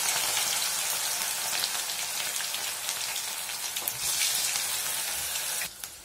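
Batter-coated cauliflower florets deep-frying in hot oil in a kadai: a loud, dense sizzle full of fine crackles as fresh pieces are dropped in. It drops suddenly to a quieter sizzle near the end.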